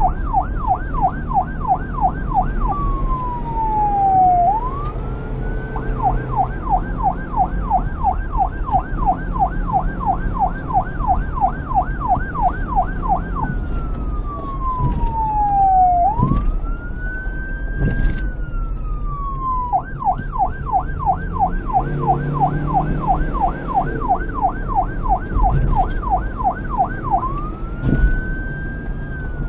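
Electronic police car siren switching back and forth between a fast yelp, about three warbles a second, and a slower wail that glides down and back up, with a low rumble underneath.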